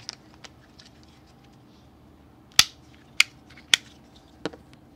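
Sharp plastic clicks, four in a row a little over half a second apart from just past the middle, as a rocker switch is pushed back into a Power Wheels F-150 shifter housing.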